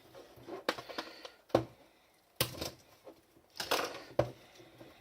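Blu-ray packaging being cut open and handled: a handful of sharp plastic clicks and crackles with short gaps between them.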